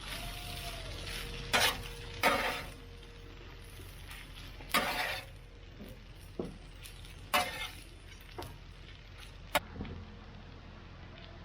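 Hash brown scramble sizzling on a Blackstone flat-top griddle while it is stirred and turned, with about six sharp scrapes and clacks of the utensil on the griddle.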